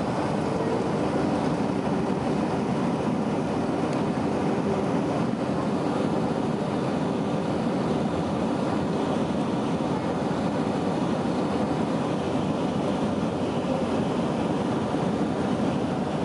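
Steady cabin noise inside a Boeing 757-200, with its Rolls-Royce RB211 engines running as it rolls along the runway after landing. A faint steady tone sits under the rumble for the first few seconds.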